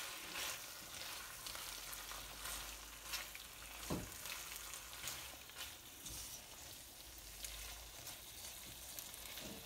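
Chicken curry in ghee sizzling gently in a non-stick wok on low heat, while a spatula stirs and scrapes through it with soft clicks. There is a sharper knock about four seconds in.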